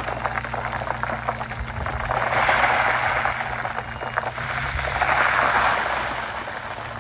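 Loose dirt sliding off a raised dump-truck bed and pouring onto cardboard: a grainy rushing hiss full of small patters, swelling twice and easing off near the end, over a steady low hum from the truck.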